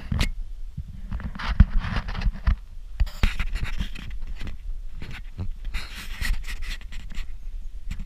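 A person breathing hard while walking, three long breaths, over a low rumble and knocks from footsteps and a handheld camera being jostled.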